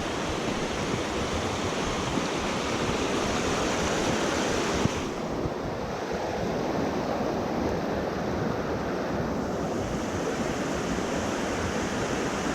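Steady rushing of a creek or waterfall. About five seconds in it turns duller as its upper hiss falls away.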